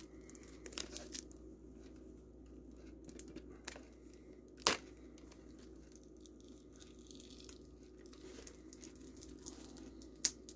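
Fingernails and teeth picking at the cellophane shrink-wrap on a VHS cassette case: faint crinkling and scratching of plastic film with scattered small clicks, and one sharp snap about halfway through.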